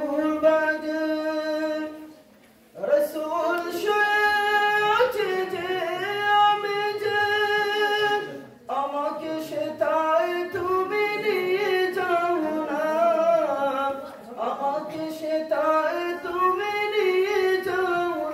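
A child's voice reciting the Qur'an in Arabic, chanted melodically with long held and gliding notes, in four long phrases broken by brief pauses for breath.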